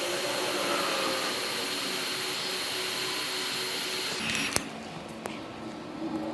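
Hot-air blower running steadily while heating the screen to soften its adhesive, then switched off about four seconds in, followed by a single sharp click.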